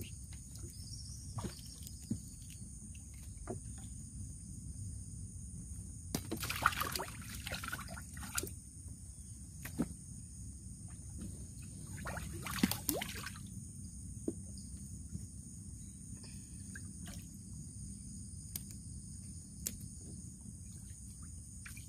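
Water trickling and splashing around a small canoe while fish are caught and a line is worked, with small knocks and two louder splashes, about six and a half and about twelve and a half seconds in, over a steady high-pitched buzz.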